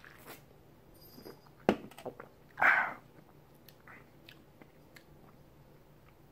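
Mouth and drinking sounds of a man drinking beer from a can: small wet clicks and smacks, one sharp click about a second and a half in, and a short breathy sound just under three seconds in.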